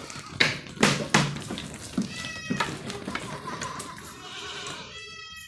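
Goats bleating, with one long high-pitched bleat in the last second or so. Several sharp knocks or clatters come in the first half and are the loudest sounds.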